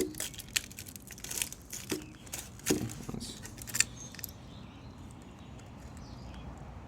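Hard plastic parts handled and knocked together: a 3D-printed wheel held against a lawn mower wheel, giving a string of sharp clicks and knocks through the first four seconds, then only faint handling.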